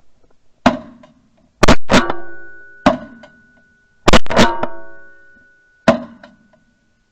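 A volley of about seven shotgun shots at geese from two hunters: two close, very loud pairs in the middle, with single shots before and after. A ringing tone hangs on and fades after each loud pair.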